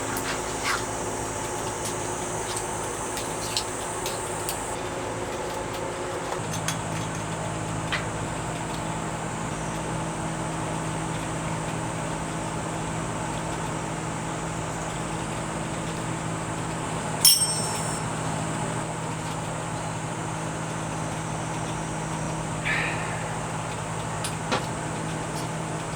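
A steady machine hum with several fixed tones that changes pitch about six seconds in, with occasional small clicks and one sharp knock about 17 seconds in.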